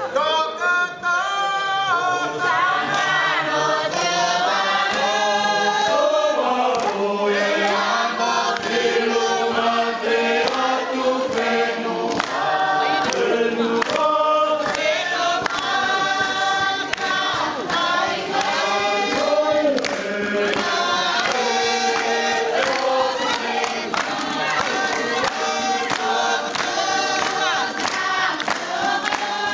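A group of people singing together in chorus, steady and loud throughout.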